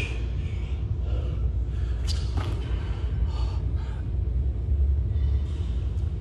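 A person doing burpees on a gym floor: a steady low rumble with a few sharp thuds of hands and feet landing.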